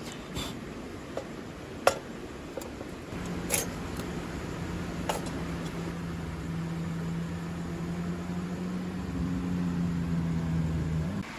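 A few sharp clicks, then a steady mechanical hum, like a small motor, starting about three seconds in and cutting off suddenly near the end, over a steady rushing background.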